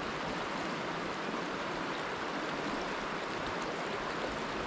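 Shallow stream running over a riffle: a steady rush of water.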